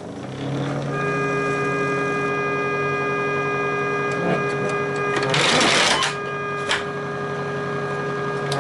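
Air-powered electric organ switched on: its blower fan starts up and runs with a steady hum. From about a second in, a single organ note sounds without a break, held by a stuck key or valve. A short rush of noise comes just past halfway, followed by a click.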